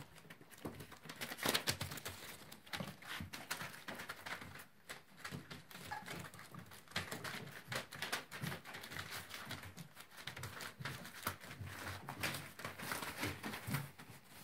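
Labrador Retriever puppies scampering and tussling on newspaper: a steady run of scratchy rustles and clicks from their paws and claws on the paper.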